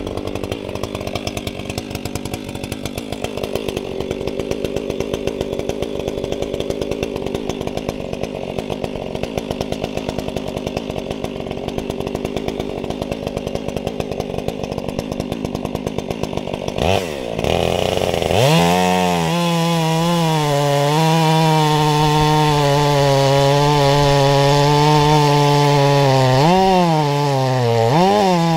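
Stihl MS500i fuel-injected two-stroke chainsaw cutting into a large log. For the first two-thirds it runs with a rough, rhythmic lower note; then it revs up to a steady high whine at full throttle, the pitch dipping twice near the end as the chain works through the wood.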